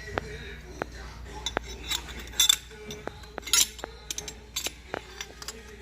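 Metal tools and parts clinking and tapping during motorcycle repair work: a string of sharp ticks, with two louder clanks a little past the middle.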